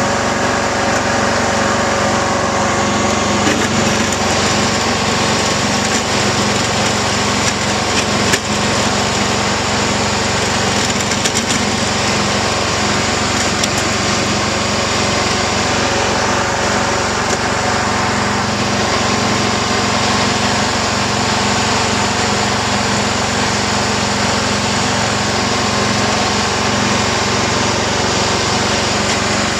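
John Deere GT262 garden tractor's engine running steadily while it pushes snow with its front blade. A single brief knock comes about eight seconds in.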